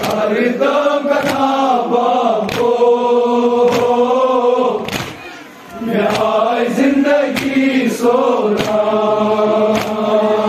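A crowd of men chanting a Muharram lament (noha) together, with sharp slaps of hands beating on chests (matam) keeping time about once every second and a quarter. The chanting breaks off briefly about halfway through.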